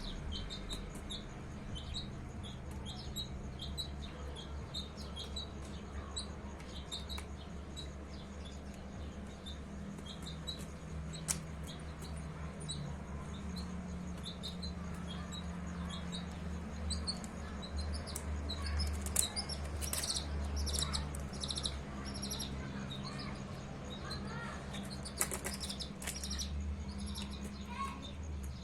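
Baby chicks peeping with many short, high chirps, over a steady low hum. Sharp clicks and rustles come in the second half.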